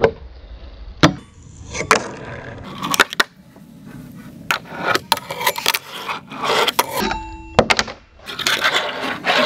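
Fingerboards skated on a wooden ramp: the small wheels roll and scrape across the plywood, broken by several sharp clacks as the boards pop and land.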